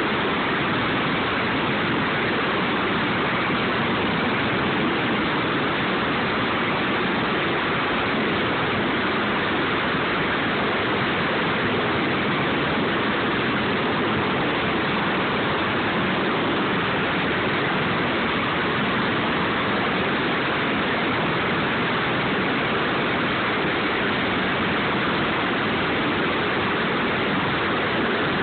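Steady, unbroken rushing roar of a Sikorsky MH-53E helicopter's turbine engines and rotor running close by, with no change in level.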